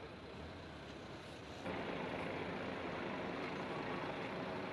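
Outdoor city ambience with steady vehicle noise and a low hum; about two seconds in it jumps abruptly to a louder, steady rushing noise.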